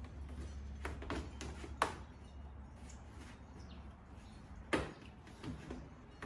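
Sharp clicks and knocks of an in-channel rain guard being bent and pushed into a car door's window channel, with two louder snaps, one about two seconds in and one near five seconds.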